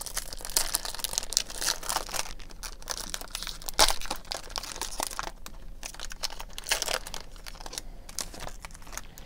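Printed foil wrapper of a 2018 Topps Gallery baseball card pack being torn open and handled, crinkling and crackling continuously, with sharper crinkles about 2, 4 and 7 seconds in.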